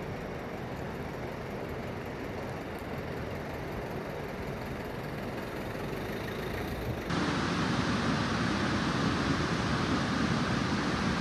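Muddy floodwater rushing in a swollen river, a steady noise. It becomes louder and fuller at a cut about seven seconds in, where the torrent runs close past a damaged bridge.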